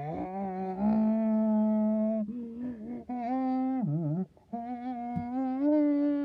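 A person humming several long held notes, the pitch wavering between them and stepping up near the end.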